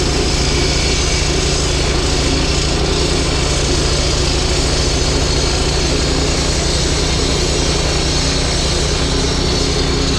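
Kubota U17 mini-excavator's diesel engine running steadily, with a fast low pulsing throb.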